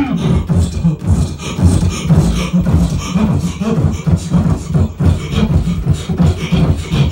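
Beatboxing into a handheld microphone: a fast, unbroken rhythm of vocal bass-drum pulses and sharp clicks, with a buzzing hum held under them.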